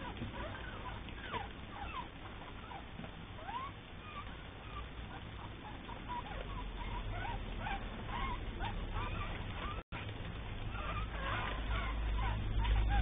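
Seventeen-day-old Cavalier King Charles spaniel puppies squeaking and whimpering, many short high squeals overlapping, as they are put to a multi-teat milk feeder for their first weaning feed. A low rumble grows toward the end, and the sound cuts out for an instant about ten seconds in.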